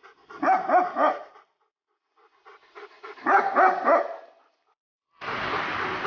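A dog yelping and whimpering in two short bouts of pitched calls, a second or so apart. A steady dense rushing noise cuts in abruptly near the end.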